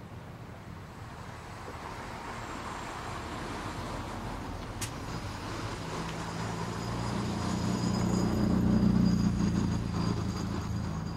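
Boat outboard motor running steadily with a low hum that grows louder partway through, peaks a little after two-thirds of the way in, then eases off as the boat passes close. There is one faint sharp click about halfway.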